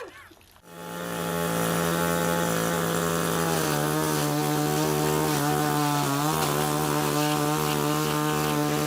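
Petrol chainsaw running at high throttle with a steady, even note. It starts after a brief quiet gap, and its pitch drops slightly about three and a half seconds in.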